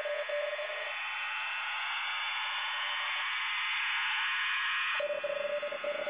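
Shortwave receiver audio from a web SDR tuned to a wide signal near 5340 kHz: a band of hiss and static with a steady tone. The tone drops out about a second in and comes back near the end.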